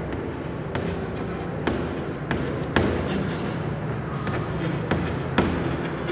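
Chalk writing on a chalkboard: irregular sharp taps as the chalk strikes the board, roughly one a second, with a steady low hum underneath.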